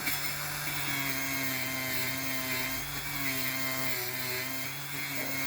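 Small electric rotary tool running steadily, its pitch wavering and dipping as it works paint off a die-cast model's metal body.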